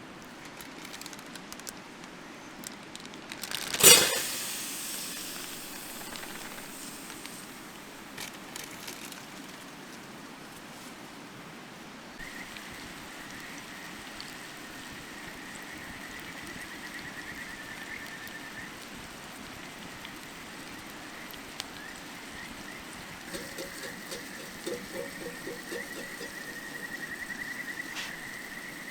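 A steady rushing hiss, with a single loud sharp knock about four seconds in. Later a thin, high, steady tone comes and goes, with a short run of quick ticks near the end.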